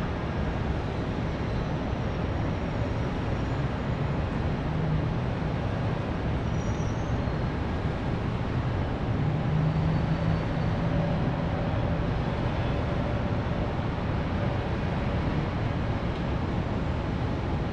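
Distant city traffic: a steady rumble of many vehicles, with the engine hum of a single passing vehicle rising a little above it about halfway through.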